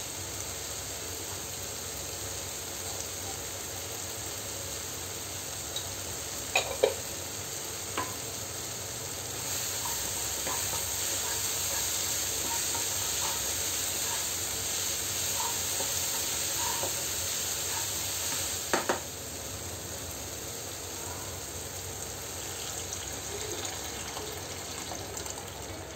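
Chopped onion and tomato sizzling in oil in a nonstick kadai while being stirred with a wooden spatula, with a few light knocks of the spatula against the pan. The sizzle grows louder for a stretch in the middle.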